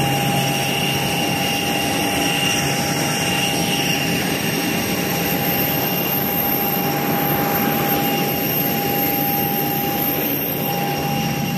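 Jet airliner engines running steadily: an even rushing noise with several steady high whines, unbroken throughout.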